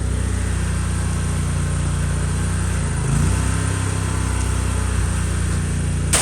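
Petrol engine of a pressure washer running steadily, with a brief dip in its note about three seconds in.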